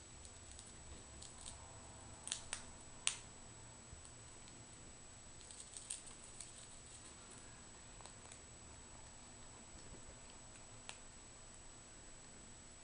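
Squirrel gnawing and chewing food held in its paws: faint scattered crunches and clicks, with a few sharper ones about two to three seconds in and a cluster around six seconds.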